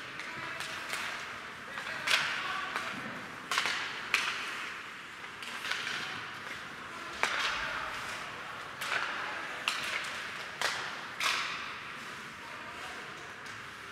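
Ice hockey play on an indoor rink: about eight sharp cracks of sticks striking the puck and the puck hitting the boards, each ringing out in the hall, over the hiss of skates scraping the ice.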